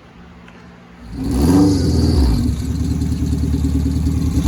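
Car engine running loudly. It comes in suddenly about a second in, after a quiet stretch.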